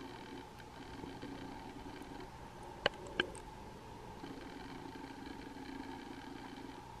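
Steady, muffled engine-like hum made of several held tones, heard underwater through a camera housing. Two sharp clicks come about three seconds in, a third of a second apart.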